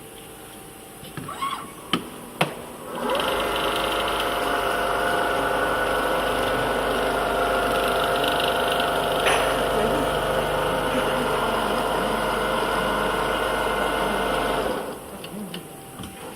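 Automatic template sewing machine running a stitching cycle: after two sharp clicks it starts up about three seconds in, runs at a steady speed for about twelve seconds, and stops suddenly near the end.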